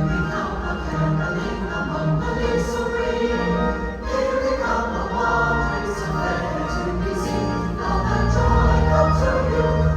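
Large choir singing a sustained, many-voiced Christmas piece with instrumental accompaniment and a steady bass.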